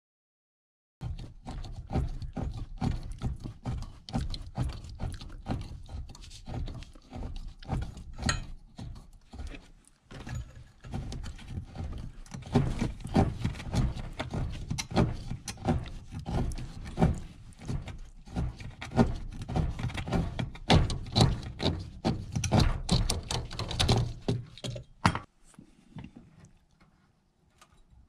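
Close-up handling noise of hands working an orange plastic fitting on a copper condensate drain pipe at an air handler's drain pan: dense, irregular knocks, scrapes and clatter over a low rumble. It starts about a second in and thins out near the end.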